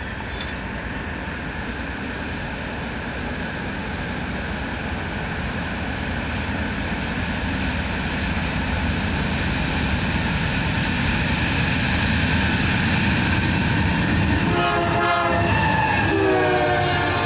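Union Pacific double-stack intermodal train approaching at speed, the drone of its lead diesel locomotives and the rolling noise growing steadily louder. Near the end, as the locomotives pass, a multi-note horn sounds with its pitch falling.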